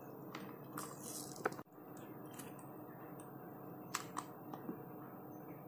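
Faint handling sounds of homemade chocolates being pressed out of a flexible silicone mold: a few soft clicks and taps, one a little louder about a second and a half in, over quiet room tone.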